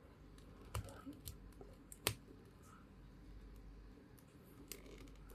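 A few small, sharp plastic clicks and taps from handling an action figure and fitting an accessory into its hand, the loudest about two seconds in, over quiet room tone.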